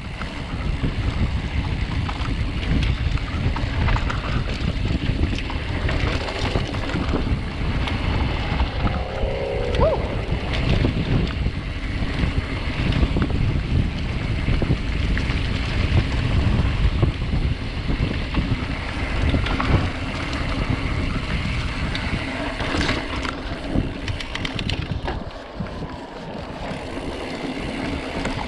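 Wind noise on the action camera's microphone as a full-suspension mountain bike rolls down a dirt singletrack. Many small knocks and rattles come from the bike and its tyres over the rough trail.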